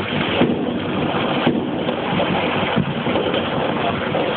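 Many fireworks going off at once, their pops merging into a dense, steady crackle with no single loud bang standing out.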